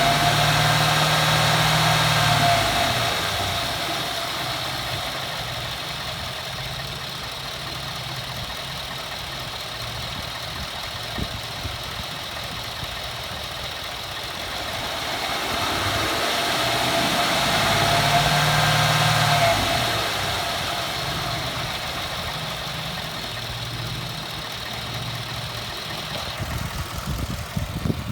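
2014 Ford F-150 4x4 pickup engine idling and revved up twice. Each rev brings a high grinding screech that rises and falls with engine speed, sounding kinda like nails on a chalkboard. The owner has not found its cause; it first came only when the engine was cold and now happens all the time. A few sharp knocks come near the end.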